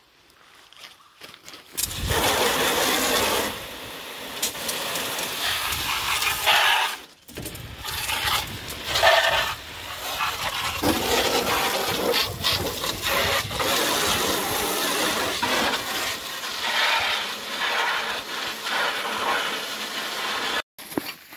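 Water spraying from a garden hose nozzle into the hull of a plastic boat, washing it out. The spray starts about two seconds in, runs in long stretches with one brief break, and cuts off suddenly near the end.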